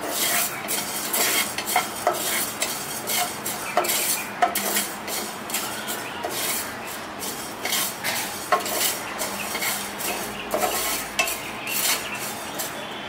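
A wooden spatula stirs and scrapes whole mustard seeds, cumin, fenugreek and black peppercorns roasting in a nonstick pan. The seeds rattle and skitter across the pan with irregular clicks and scrapes, several a second.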